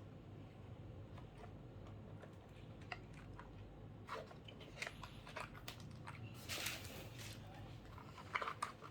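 Faint scattered clicks with a short crinkly rustle about six and a half seconds in and a quick run of clicks near the end: a mechanical keyboard and its packaging being handled.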